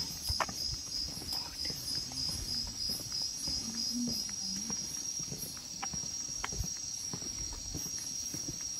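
Night insects chirping in a high, thin tone, pulsing about twice a second and then running on unbroken about five seconds in, with the soft footsteps of people walking on a paved lane.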